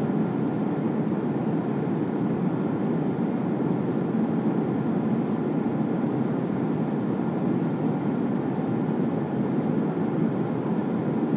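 Steady cabin drone of a jet airliner in flight, engine and airflow noise heard from a passenger seat, low and even throughout.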